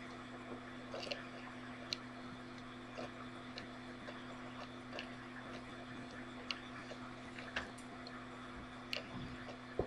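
Room tone: a steady low hum with scattered faint clicks and ticks at irregular intervals, the sharpest about two seconds in and near the end.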